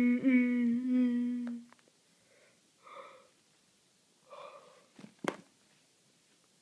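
A person humming one steady low note for about a second and a half, with a brief break early on. This is followed by a couple of faint breathy sounds and two quick light taps near the end.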